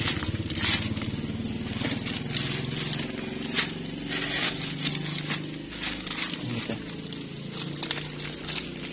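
A small engine running steadily at an even pitch, with scattered clicks and rattles over it.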